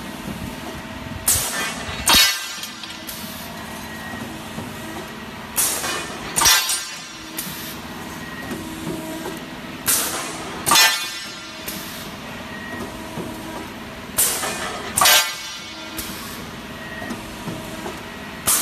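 Round bar chamfering machine running with a steady hum. About every four seconds the hum is broken by a pair of loud bursts of noise, the two less than a second apart, as the machine repeats its cycle.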